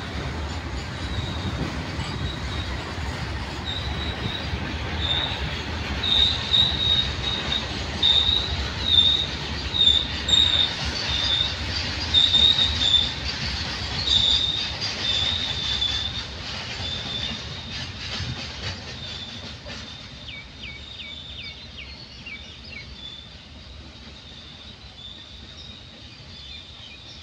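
Freight train of covered hopper wagons rolling past, its wheels squealing in repeated high-pitched bursts over a steady rumble and clatter on the rails. The sound fades away over the last several seconds as the tail of the train goes by.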